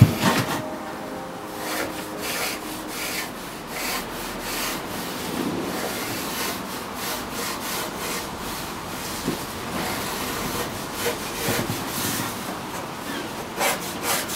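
Pencil drawing on a wooden chair backrest: a run of short, scratchy strokes, starting and stopping, as lines are marked out on the board.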